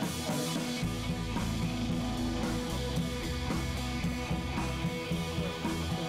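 Background rock music with guitar and drums.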